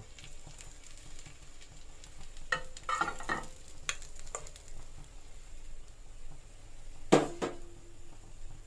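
Oil sizzling in a nonstick frying pan as fried beef patties are lifted out with a steel slotted spatula, with light scrapes and clicks of the spatula and one sharp clink about seven seconds in.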